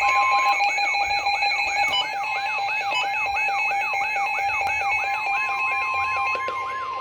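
Several emergency alert alarms sounding together for a severe thunderstorm warning. A falling chirp repeats about three times a second over steady and beeping high tones, and a steady alert tone joins about five seconds in.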